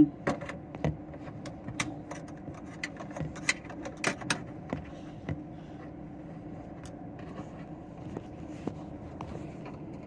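Irregular sharp clicks and scrapes of a long thin tool poking at a stuck tailgate latch unit to trip it by hand, thickest in the first five seconds and sparse after. A steady low hum runs underneath.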